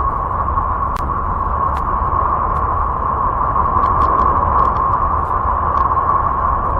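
A steady hiss with a low rumble beneath and a band of noise near 1 kHz, dotted with a few faint clicks: a 'sound of space' recording, space data turned into sound.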